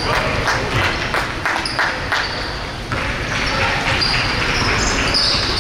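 Indoor game on a hard court: a quick run of thuds from ball and feet on the floor, with short high squeaks and a steady hubbub of crowd voices underneath.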